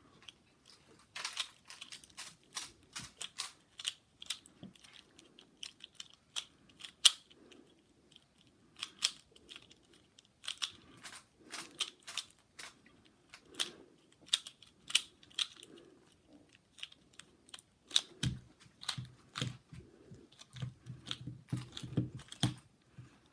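Rubik's cube being turned one-handed in a speedsolve: irregular clicking of the plastic layers, a few clicks a second in quick runs with short pauses.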